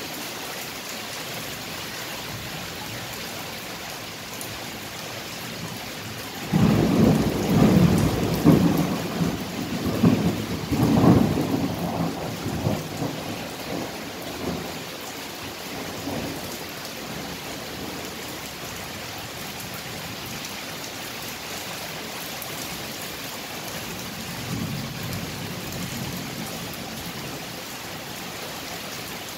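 Thunderstorm: steady rain hiss, with a sudden thunderclap about six seconds in that rumbles on for several seconds before dying away. A fainter roll of thunder comes near the end.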